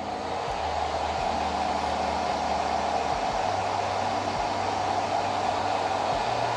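Handheld hair dryer running steadily on hair: an even, unbroken rushing blow.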